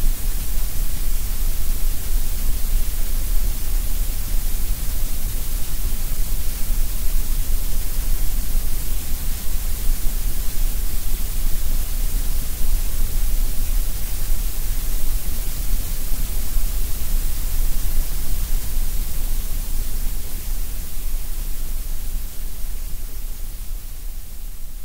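Steady synthetic coloured noise, an even hiss across all pitches with no tone or rhythm, starting to fade out over the last few seconds.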